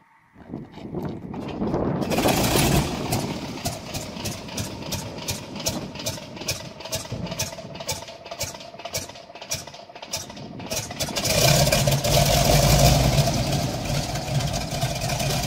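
Pratt & Whitney radial engine of a biplane crop duster turning over with an even pulsing on a cold start, then catching about eleven seconds in and running steadily and loud.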